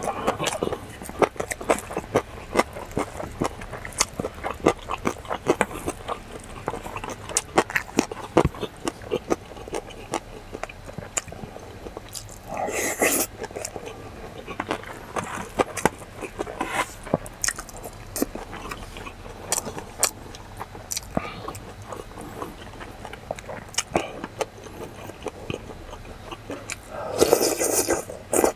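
Close-up eating sounds: wet chewing and mouth clicks over rice mixed with stew and side dishes, with a wooden spoon scraping a stainless steel bowl. There are louder slurps about halfway through and again near the end.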